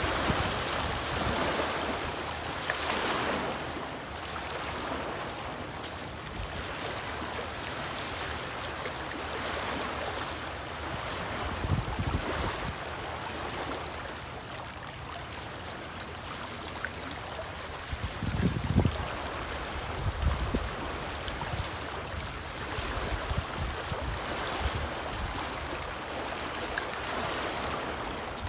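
Small choppy lake waves lapping and splashing against a rocky shoreline, with wind gusts buffeting the microphone now and then, most strongly about twelve seconds in and again around eighteen to twenty seconds.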